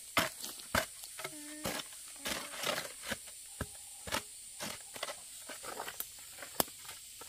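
A series of irregular sharp knocks, about two a second, with a short pitched call about one and a half seconds in.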